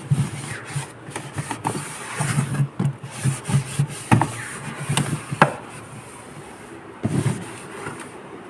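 A dry cloth rubbing and wiping the plastic inside walls of a refrigerator in uneven strokes, with a few knocks against the fridge.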